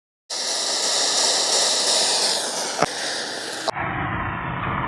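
Gas soldering torch flame hissing steadily, with a single sharp click a little before three seconds. About three and a half seconds in the sound cuts abruptly to a duller, deeper rush.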